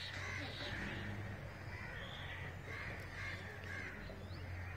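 Birds calling repeatedly in short calls, several a second, over a steady low hum.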